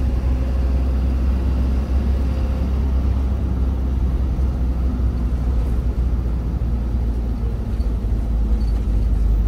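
Steady low rumble of a moving vehicle, even throughout.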